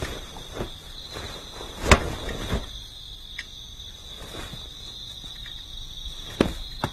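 Crickets chirping in a steady high-pitched drone, with a few short knocks, the loudest about two seconds in and two more near the end.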